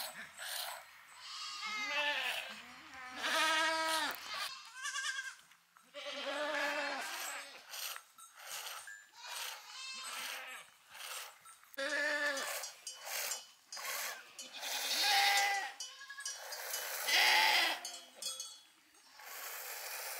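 A herd of goats and sheep bleating: many wavering calls, one after another and sometimes overlapping.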